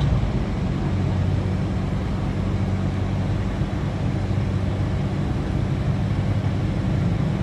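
Steady engine and road noise of a moving car heard from inside the cabin, a low hum.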